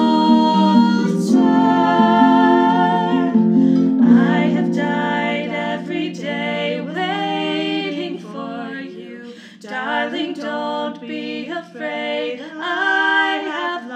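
Two female voices singing a slow ballad in harmony, at first over sustained notes from a pedal harp. From about four seconds in the voices carry on unaccompanied in wavering, held phrases.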